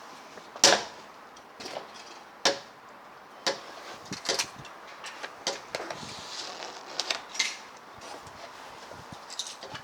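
Scattered clicks and light knocks of small die-cast toy cars being picked up, handled and set down, a dozen or so irregular taps with the sharpest near the start.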